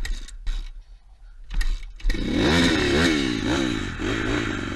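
Pitster Pro 160cc pit bike's single-cylinder four-stroke engine: a few sharp knocks at first, then from about two seconds in the throttle is blipped repeatedly and the revs rise and fall. It has to be kept revving because it will not idle without steady throttle, a sign of a carburettor that needs cleaning and tuning.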